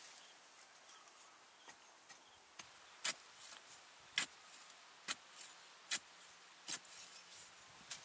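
Digging bar striking into earth in a series of sharp chopping strokes, about one a second and loudest from about three seconds in, digging out a wild tuber.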